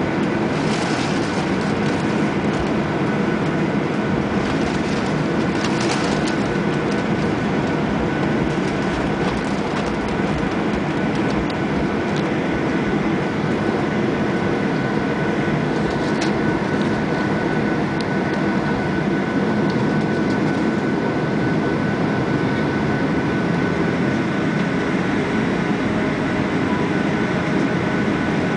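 Cabin noise of a Boeing 737-800 taxiing: its CFM56 turbofan engines running at low power with a steady high whine over a constant rumble from the wheels rolling on the runway, with a couple of brief rattles in the first few seconds.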